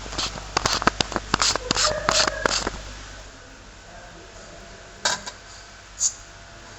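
Quick run of small hard clicks and taps, some with a short metallic ring, over the first two and a half seconds, then two single knocks about five and six seconds in.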